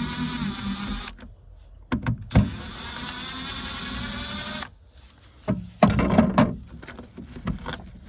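Cordless drill-driver whining in two runs as it backs out two screws: a short run of about a second, then a longer one of about two seconds, with a few clicks between. After that come a few knocks and rattles of handling.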